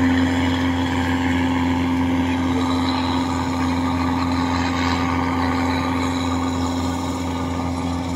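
Kubota rice combine harvester running steadily under load as it harvests, a constant engine drone with a steady hum that does not change.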